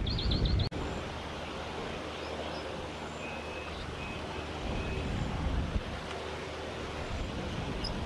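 Wind rumbling on the microphone with a quick run of about five high chirps from a bird, cut off abruptly under a second in. Then a steady outdoor hiss with a few faint, thin whistled bird notes and one short high chirp near the end.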